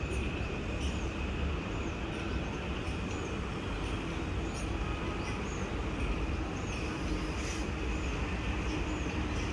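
Steady city traffic noise, a low rumble with hiss over it, and a short high chirp repeating about every two-thirds of a second.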